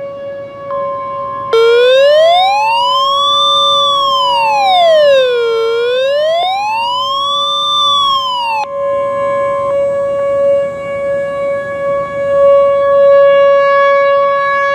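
Outdoor warning sirens during a siren test. One siren holds a steady tone all the way through. A second, louder siren wails, rising and falling slowly twice, and cuts off abruptly about nine seconds in.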